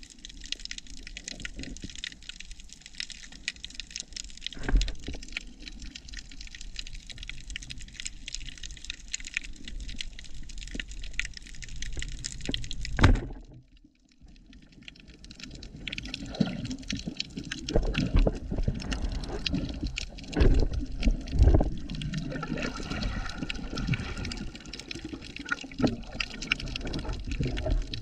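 Underwater sound with a constant fine crackling. A band-powered speargun fires with a sharp crack about halfway through, and the sound drops out briefly just after. Irregular low thumps and knocks follow.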